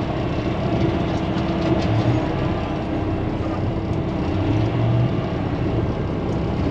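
Feed truck's engine running steadily, heard from inside the cab as it drives slowly, a constant hum with a held mid tone.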